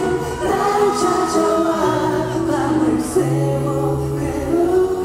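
Male K-pop vocalist singing a slow ballad live into a handheld microphone over a backing track with long sustained bass notes, heard through the venue's PA from among the audience.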